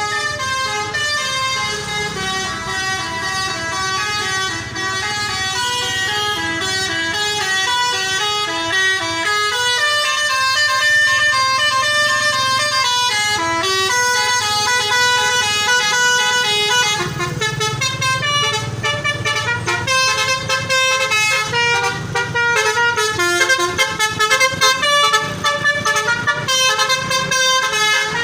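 Basuri horn, a set of musical air horns fitted to a vehicle, playing a long melody of stepped notes. The notes turn shorter and choppier about two-thirds of the way through.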